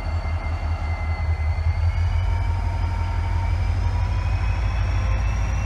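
EMD SD40-3 diesel-electric locomotive's turbocharged 16-cylinder engine running at low speed as it shoves three freight cars, a deep pulsing rumble with a faint high whine that rises slowly in pitch. It grows slightly louder as the locomotive approaches.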